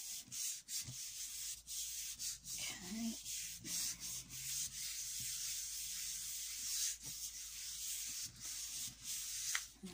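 Palms rubbing back and forth over a sheet of card stock laid on a gel plate, a dry swishing of skin on paper in repeated strokes with short breaks. The card is being burnished down to lift an alcohol-ink print off the plate.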